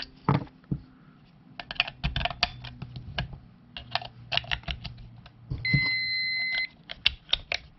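Plastic clicks and clatter of two AAA batteries being pressed into the battery compartment of a small handheld digital alarm clock. About two-thirds of the way through the clock gives a single steady electronic beep about a second long as it powers up. Then come a few more clicks as the plastic battery cover is snapped back on.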